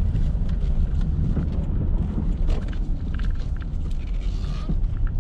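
Steady low rumble of engine and tyre noise heard inside the cabin of a 2009 Subaru Outback with the 2.5-litre flat-four, driving along a road.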